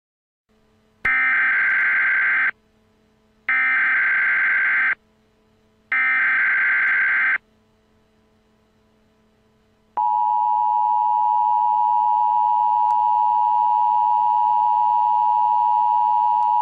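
Emergency Alert System opening tones: three short bursts of SAME header data, each a buzzing digital warble about a second and a half long with about a second between them. After a pause comes the steady two-tone EAS attention signal, starting about ten seconds in.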